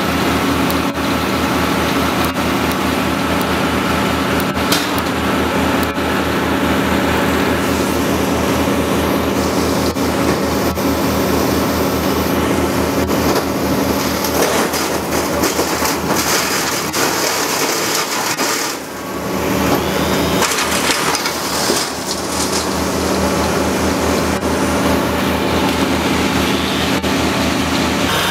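An engine running steadily with wood cracking and splintering over it, dipping briefly about two-thirds of the way through.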